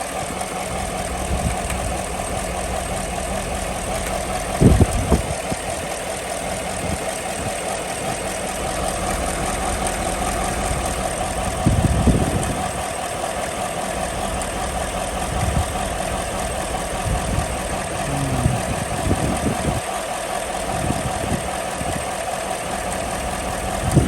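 2015 GMC Sierra V8 engine idling with a cylinder 8 misfire, the steady running broken by irregular low thumps, the strongest about 5, 12 and 19 seconds in.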